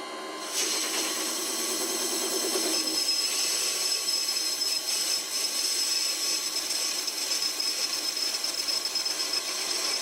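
Lathe tool facing off aluminium on a vintage bench wood lathe: a high-pitched cutting hiss with a thin whine starts about half a second in as the tool bites, over the steady hum of the spinning lathe.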